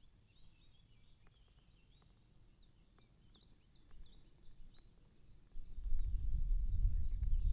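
Small birds singing in woodland: repeated short, high chirps and quick falling notes. About five and a half seconds in, a loud low rumble sets in and keeps going.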